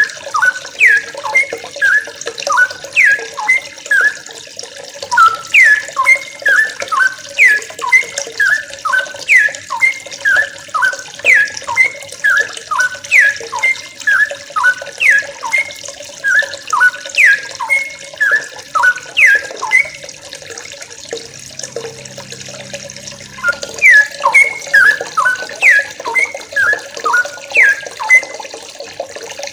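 Yellow-vented bulbuls (trucukan) calling over and over in short, bubbly chattering phrases, about one a second, with a brief lull about two-thirds of the way through.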